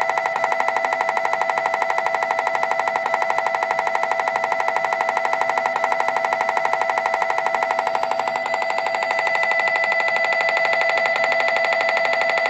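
MRI scanner running an echo-planar imaging (EPI) fMRI sequence: the gradient coils give a loud, rapid, steady pulsed buzzing tone that repeats many times a second without a break.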